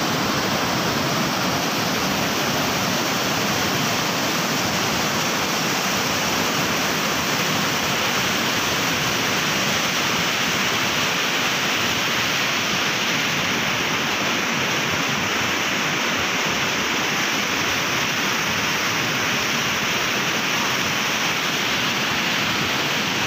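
Swollen, muddy floodwater rushing and churning through rapids, a steady loud rush of water with no change in level.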